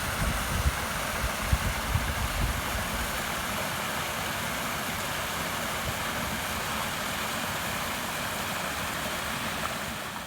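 Water rushing steadily out of a dam's overflow pipe in flood, a constant even roar of noise.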